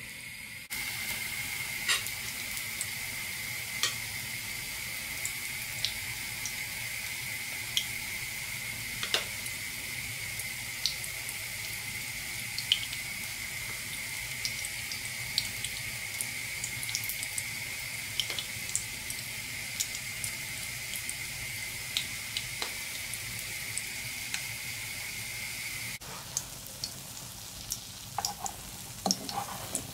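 Kefir-batter fritters frying in shallow hot oil in a pan: a steady sizzle with scattered sharp pops. A few seconds before the end the sizzle drops and a metal spatula clicks and scrapes against the pan as a fritter is turned.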